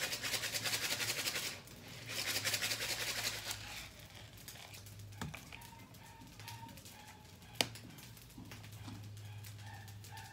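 Hand-twisted pepper mill grinding black pepper: two bursts of rapid, rasping clicks in the first four seconds. Then a quieter stretch with a soft knock about five seconds in and a single sharp click about seven and a half seconds in.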